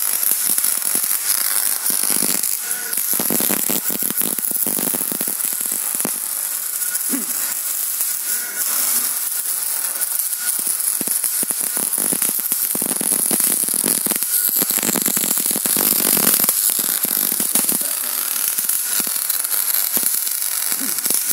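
Welding arc crackling steadily as a bead is laid on a rear suspension strut's top mount, with a few brief breaks between runs. The sound starts abruptly.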